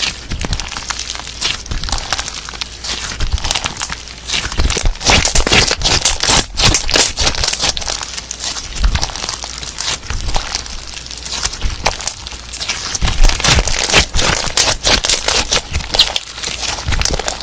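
Slime being squished and played with, giving a continuous dense crackling of small pops and clicks.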